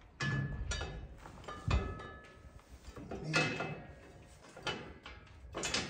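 Steel grill guard insert scraping and clanking against the grill guard frame as it is worked into place by hand: about six metallic knocks and scrapes, several ringing briefly.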